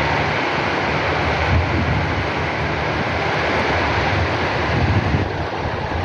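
Heavy rain pouring steadily, a dense even hiss, with gusts of wind buffeting the microphone in an uneven low rumble.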